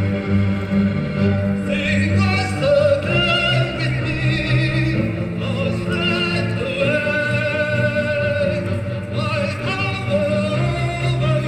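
Live operatic singing with a wide vibrato on long held notes, over steady instrumental accompaniment.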